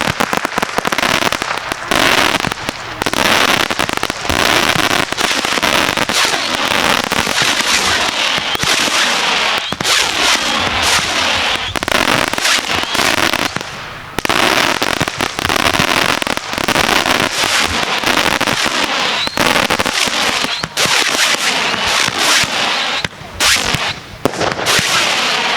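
Fireworks display: a dense, near-continuous barrage of crackling and popping bursts, easing briefly a few times, most clearly about fourteen seconds in and again near the end.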